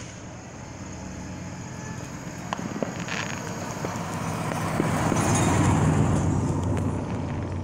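A car driving past: its engine and tyre noise grow louder to a peak about five to six seconds in, then fade.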